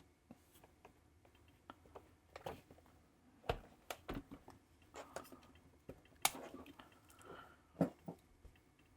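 Quiet handling noise: scattered light clicks and taps of small hard objects, with a few sharper knocks about three and a half and six seconds in.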